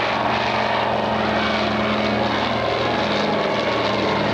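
PBY Catalina's twin Pratt & Whitney R-1830 radial engines and propellers droning steadily, with the pitch shifting slightly about three seconds in.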